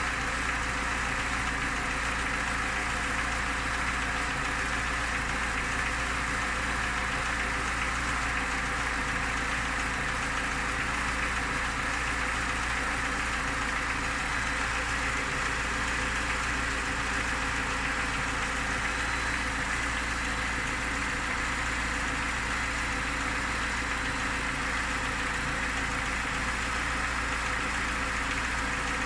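Niva's four-cylinder petrol engine idling steadily with a knock in it that the owner cannot identify.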